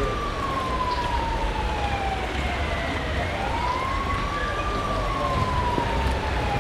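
Emergency vehicle siren wailing, twice in slow cycles: each rises quickly, then falls slowly over about three seconds. Under it runs a steady low rumble of city background.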